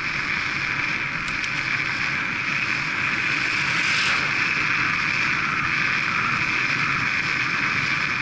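Steady rush of wind and tyre noise on a bicycle-mounted camera riding at about 25 mph, with the brief swelling whoosh of a car passing the other way about four seconds in.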